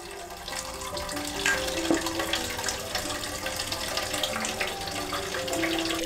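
A stream of rainwater running from a pipe into a galvanized metal watering can, a steady splashing as the can fills.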